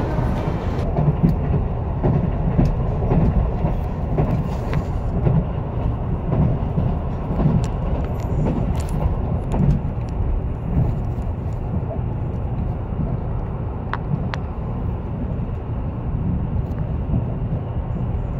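Train running along the line, heard from inside the carriage: a steady rumble of wheels on rails, with a few sharp clicks.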